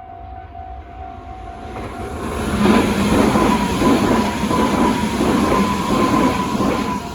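A level-crossing alarm rings steadily, then a train runs over the crossing from about two and a half seconds in. Its wheels clatter rhythmically over the rail joints under a high whine, and the passing noise drops away near the end.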